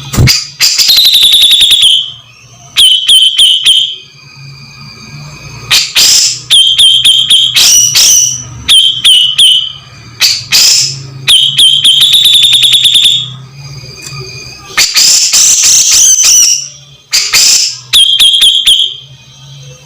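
Cucak jenggot (grey-cheeked bulbul) singing loud, shrill chattering phrases of rapid repeated notes. There are about eight bursts, each one to two seconds long, with short pauses between them.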